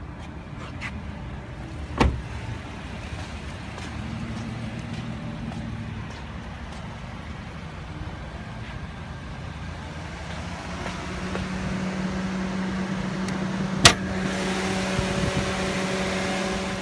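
2016 Scion iM's 1.8-litre four-cylinder engine idling steadily, growing louder and fuller near the end as it is heard from the open engine bay. A click comes about two seconds in and a single sharp clack near the end.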